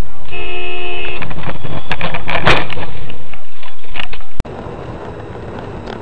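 A car horn sounds for about a second, then a cluster of loud bangs and crunches as cars collide, all very loud on a dashcam microphone. About four seconds in, the sound cuts abruptly to much quieter, steady in-car road noise.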